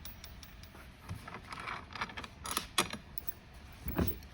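Light clicks, small rattles and knocks of plastic toy-car parts being handled and fitted, with a duller knock near the end.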